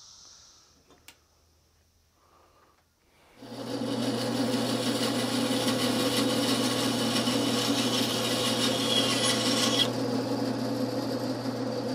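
Band saw cutting through the protruding end of a cocobolo axe handle, trimming it down above the axe head. The saw comes in suddenly about three seconds in with a steady motor hum and the noise of the cut; near ten seconds the cut finishes and the saw runs on. Faint crickets can be heard at the start.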